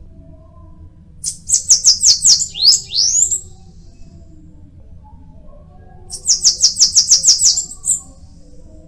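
Bananaquit singing two short bursts of rapid, high, sweeping notes. The first burst comes about a second in and ends in two rising slurs; the second comes about six seconds in.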